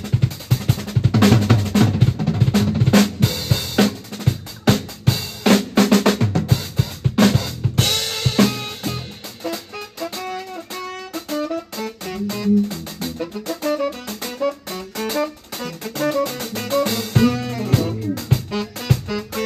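Psychedelic jazz band playing live. For the first half a busy drum kit plays with bass guitar. After a crash about eight seconds in the drums thin out and a melodic line of stepping notes comes forward, with the full band building again near the end.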